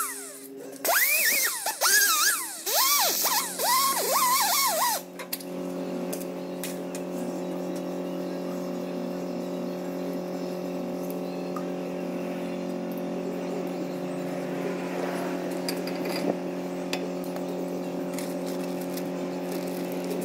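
Pneumatic die grinder with a small abrasive disc cleaning a wheel hub face. It revs up and down in short bursts as it bites, then stops about five seconds in. Steady background music with held notes runs under it and carries on alone afterwards.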